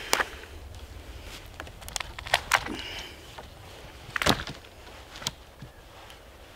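Dry dead twigs and branches on a long wooden pole cracking and snapping as it is lifted and laid across other poles. There are several sharp snaps, the loudest about two and a half and four seconds in.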